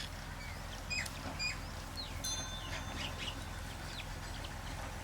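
Birds chirping, with many short high whistles and chirps scattered throughout, over a steady low hum.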